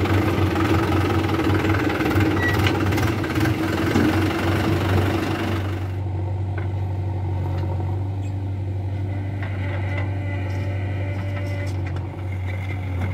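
Swaraj tractor diesel engine running, heard up close from the driver's seat. About six seconds in the sound changes abruptly to a quieter, steadier engine hum of tractors and a JCB 3DX backhoe loader idling.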